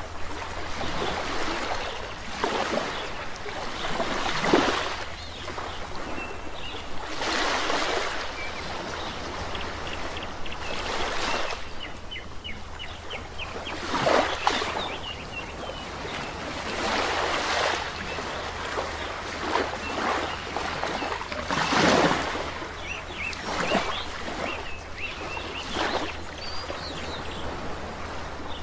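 Small waves breaking and washing on a shore, a splashing swell every couple of seconds, with birds chirping faintly and a steady low rumble beneath.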